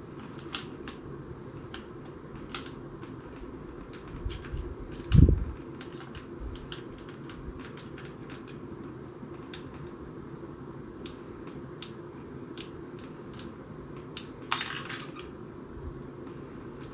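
Small clicks and ticks of small screws and parts being handled and fitted into a foam-dart blaster body, over a steady low hum. There is one dull thump about five seconds in, and a short scraping rustle near the end.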